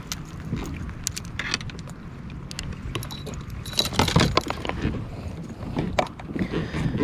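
Scattered metallic clinks and rattles of fishing tackle: a multi-arm umbrella rig's wires and jig heads knocking together as it swings from the rod, with a dense burst of clinks about four seconds in. A low rumble of wind on the microphone runs underneath.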